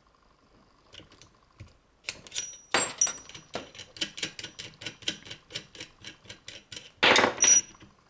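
Metal parts of a leather edge burnishing machine clicking and clattering as an attachment is changed by hand: a quick run of light clicks, about four a second, with two louder metallic clatters, one about three seconds in and one near the end.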